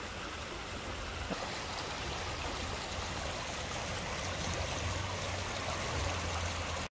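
Muddy rainwater runoff rushing over stones and gravel in a shallow flood channel: a steady rushing of water with a low rumble underneath, cutting off abruptly near the end.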